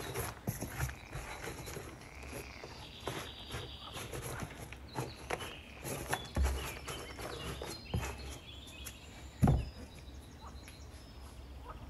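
Loose coco coir substrate rustling and scraping as a gloved hand spreads it across the bottom of a plastic storage bin, with a couple of dull knocks against the bin, the loudest about nine and a half seconds in.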